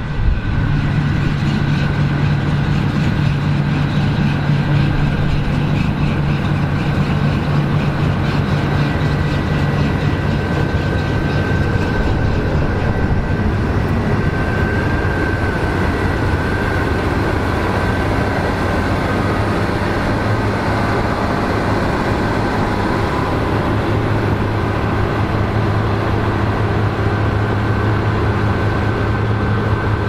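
Claas Lexion combine harvester running under load while harvesting grass seed: a steady diesel engine drone with threshing machinery. The engine note settles lower about halfway through.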